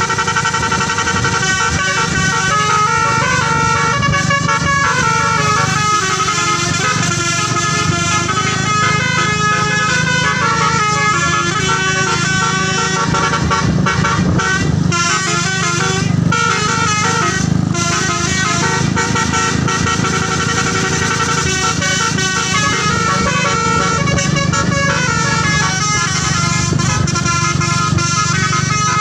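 Bus 'telolet' musical horn playing a tune of stepping notes without a break, over a steady low rumble.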